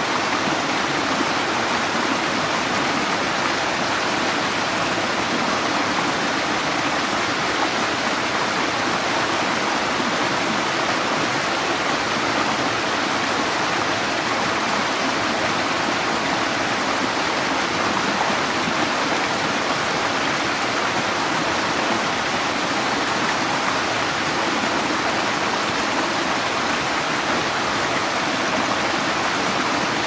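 Small cascade of water splashing over rocks in a forest creek, a steady even rush.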